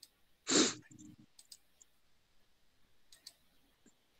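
A short burst of breath noise on a headset microphone about half a second in, then a few faint clicks.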